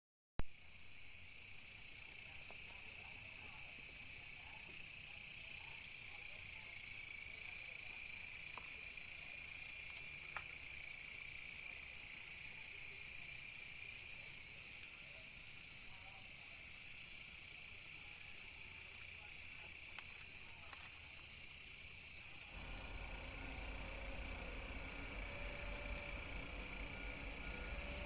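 Insect chorus: a steady, high-pitched trilling with a regular pulse about once a second on top. About 22 seconds in, a low rumble joins underneath.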